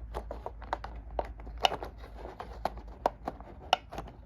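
Plastic board-game miniatures being handled: a string of irregular sharp clicks and taps as the figures knock against each other and the table.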